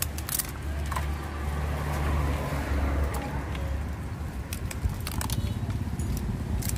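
Kitchen scissors snipping through raw blue swimming crab shells, a few short sharp clicks, over a steady traffic rumble that swells as a vehicle goes by about two seconds in.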